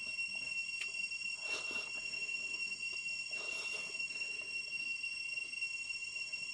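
Eating sounds: a few short, wet mouth noises of chewing rice eaten by hand, over a steady high-pitched drone.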